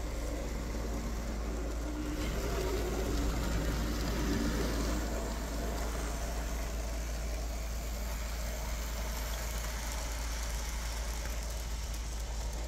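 Märklin Z-scale locomotive's tiny electric motor running as it pulls a freight train, a faint whine with the wheels rolling on the track, over a steady low hum.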